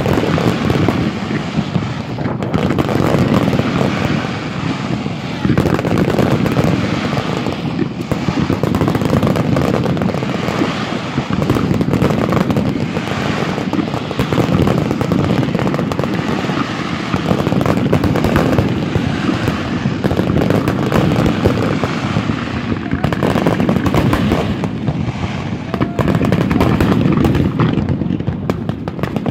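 Fireworks display: a dense, continuous barrage of bangs and crackling bursts, with no let-up.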